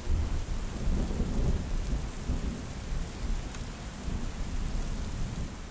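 Heavy rain pouring steadily, with a low rumble under it that is strongest in the first second or two.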